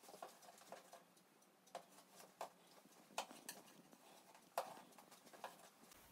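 Near silence with faint, irregular taps and scrapes of a long metal spatula spreading jam around the side of a cake.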